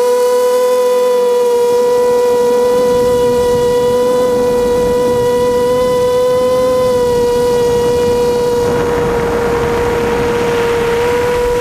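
Blackout Mini H quadcopter's brushless motors and propellers whining at a steady pitch, heard from the onboard camera. From about eight and a half seconds in, a rushing noise swells under the whine and fades near the end.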